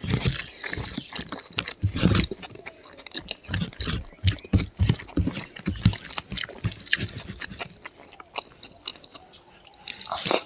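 Close-miked chewing of spicy pork and rice: wet, irregular mouth clicks and smacks at a quick, uneven pace. It eases off for a couple of seconds near the end.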